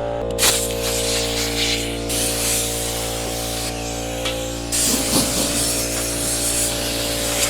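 Compressed air hissing loudly in several blasts, blowing grinding dust out of the bowl of a kettle grill, with short breaks between blasts.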